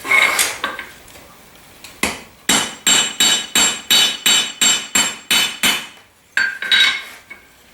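Hammer striking half-inch round steel bar stock on an anvil with metallic, ringing blows. A few quick clanks are followed by a steady run of about eleven evenly spaced blows, roughly three a second, then two more near the end, as the pieces are tapped toward a uniform shape.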